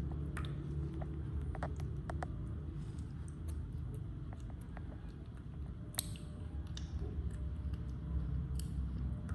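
Baby macaque chewing and smacking on food: scattered small wet clicks and smacks, with one sharper click about six seconds in, over a steady low background rumble.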